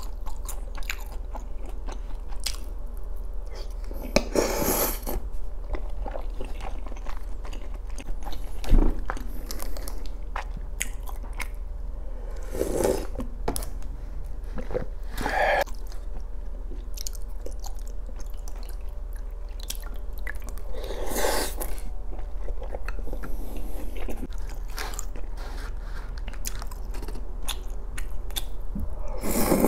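Close-miked chewing of tteokbokki, the chewy Korean rice cakes in spicy sauce: a run of small wet mouth clicks and smacks, with a few louder noisy swells.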